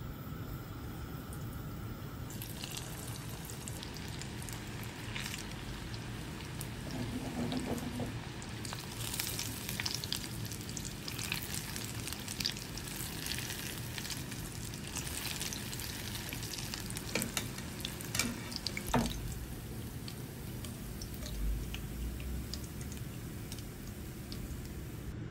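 Cornflake-coated plantain and sausage skewers deep-frying in a saucepan of hot oil: steady sizzling with fine crackles, and a few sharp knocks of the slotted spoon against the pan about two-thirds of the way through.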